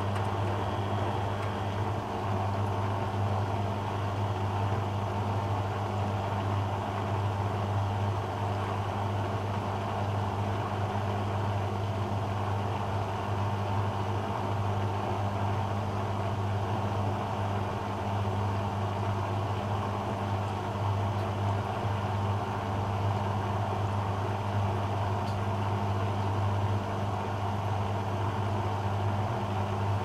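Beko WM74155LS washing machine's brush motor turning the drum at a steady speed, an even hum with no rise in pitch, as the machine holds the load against the drum during its out-of-balance check before the spin.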